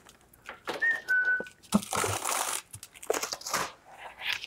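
Plastic-wrapped packages of meat crinkling and rustling as they are handled and stacked into a freezer, with a short high squeak about a second in.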